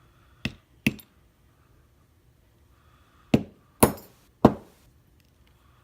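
Sharp metallic knocks as the euro cylinder lock is tapped to free springs stuck in its pin chambers. There are two knocks within the first second and three more around the four-second mark.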